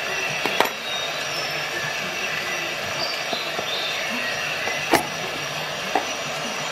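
A small screwdriver and a digital caliper's metal slider give off three sharp metal clicks and taps, the loudest about five seconds in. A steady background hiss runs under them.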